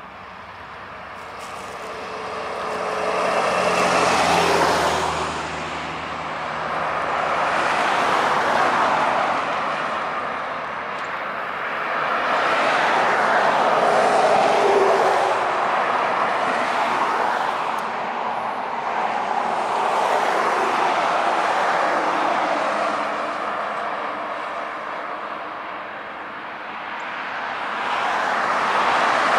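Road vehicles passing close by one after another: about five swells of tyre and engine noise, each rising and fading away.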